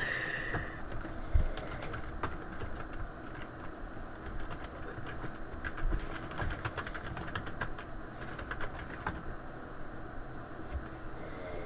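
Computer keyboard typing: irregular runs of key clicks, busiest in the middle stretch, over steady background noise heard through a voice call.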